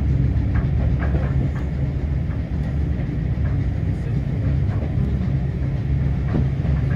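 Railway carriage running along the track, heard from inside: a steady low rumble of wheels on rails, with a few faint irregular clicks.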